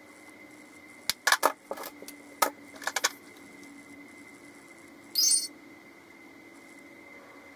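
Small hard objects, such as makeup containers being handled, clicking and clattering in several quick knocks over about two seconds, then one short high-pitched squeak about five seconds in.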